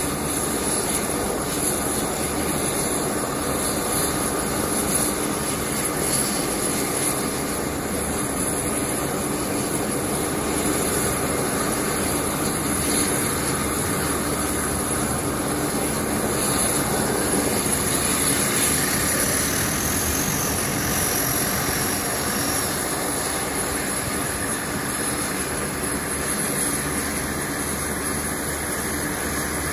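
The Rolls-Royce AE 2100 turboprop engines of a C-130J Super Hercules running on the ground during start-up, their six-bladed propellers turning. A steady rushing engine noise with a constant high turbine whine over it.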